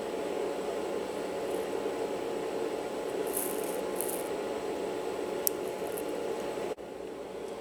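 Steady low background hum, with a few faint brief hisses and a single small click a bit past halfway; the hum drops off abruptly near the end.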